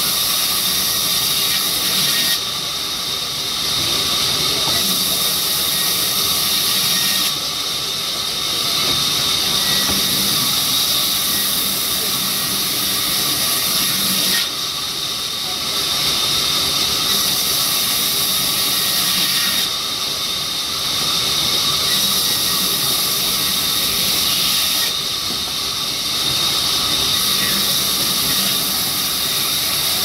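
Large vertical band saw ripping mahogany planks: a steady high whine over a loud hiss. It grows louder and quieter in turns, about every three to five seconds.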